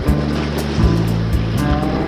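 Background music with a steady beat: a bass line stepping between held notes and a light tick about four times a second.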